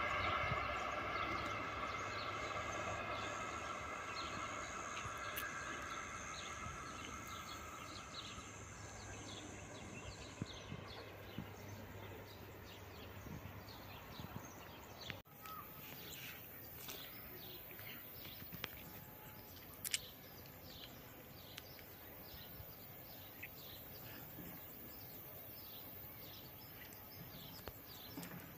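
A train fading into the distance, its rumble and wheel noise sinking steadily over the first ten seconds or so. After an abrupt break about halfway, birds chirp over quiet outdoor background.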